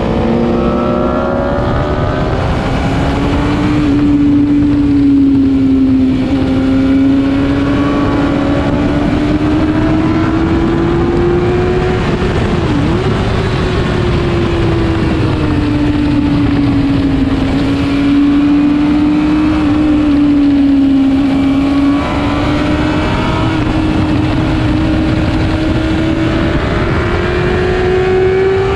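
Sport motorcycle engine running hard at high revs, heard from on board the bike with wind and road rush. Its pitch wavers slowly up and down with the throttle, with a brief dip about 13 seconds in.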